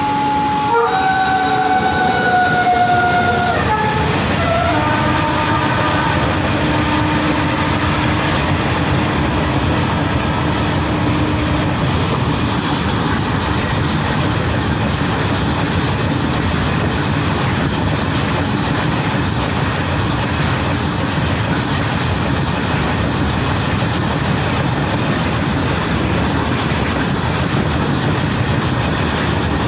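Electric locomotive horn sounding a held multi-tone chord for about four seconds, its pitch sagging as it dies away. Then a freight train's open box wagons roll past close by with a steady rumble and wheel clatter.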